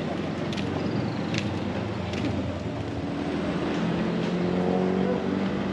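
A motor vehicle's engine running steadily at low revs, its hum firming up a little about halfway through.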